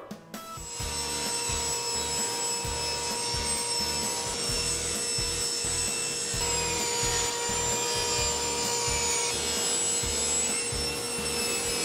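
Table saw running and ripping walnut and maple boards: a steady whine with the hiss of the blade cutting the wood, shifting slightly as one board gives way to the next.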